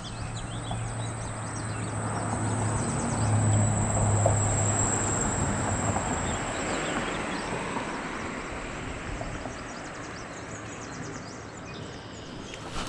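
A vehicle passing by: a low engine hum and a broad rushing noise that swell to a peak about four seconds in, then slowly fade away.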